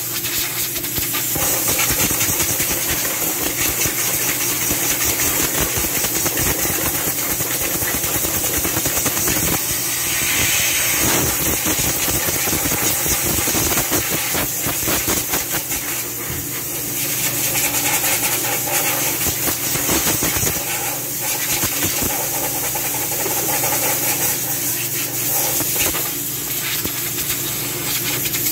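Compressed air hissing from a blow gun aimed at dust inside an air compressor cabinet, in one long blast that swells and eases slightly, over a steady machine hum.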